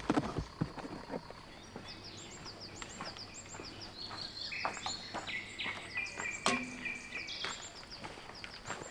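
Small birds chirping repeatedly in short high notes, with a brief held trill in the middle, over a steady outdoor background; a few sharp knocks right at the start.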